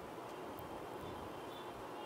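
Steady low hiss of room tone and microphone noise, with a few faint, brief high tones in the second half.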